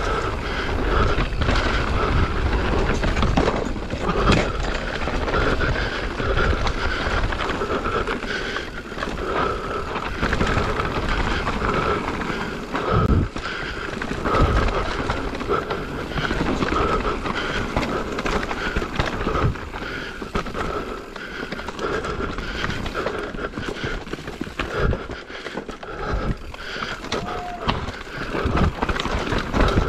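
Mountain bike descending a dirt forest singletrack: tyres rolling over packed dirt and dry leaves, with knocks and rattles from the bike as it hits bumps, roots and rocks.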